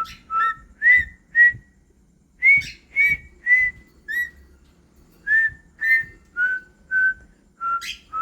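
A run of short whistled chirps, about two a second with a couple of brief pauses, each note sliding up quickly and then holding a clear tone.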